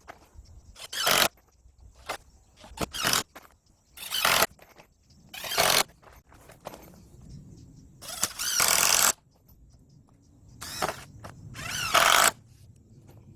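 A hand tool scraping wood in repeated strokes, about nine rough rasping passes at an uneven pace, each under a second or so long, with short pauses between them.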